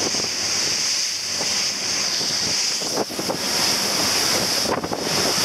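Wind buffeting the microphone over the rush of water along a fast-running boat's hull and wake, with sharper gusts about three seconds in and near the end.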